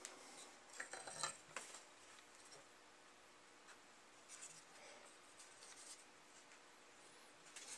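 Near silence with faint handling noise: a few brief scrapes of wood rubbing on wood about a second in, and softer rubbing around five seconds in, as a freshly glued wooden box is handled.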